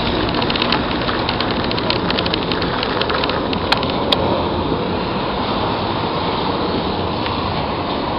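Bicycle ridden along a fine gravel path: a steady rushing noise of the tyres, with a run of small crackling ticks over the first three seconds and two sharp clicks about four seconds in.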